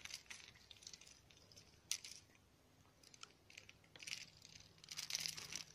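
Faint, scattered rustling and small handling noises, with one sharper click about two seconds in and a cluster of rustles near the end.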